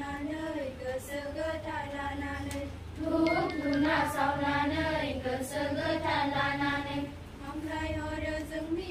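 A large group of schoolchildren singing a prayer together in unison, in long held phrases with short breaks about three and seven seconds in.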